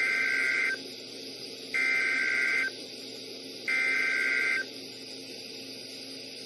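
NOAA Weather Radio SAME header: three bursts of screeching digital data tones, each just under a second long and about a second apart. This coded header opens an Emergency Alert System message, here a weekly test of the warning system. A faint radio hiss and hum fill the gaps.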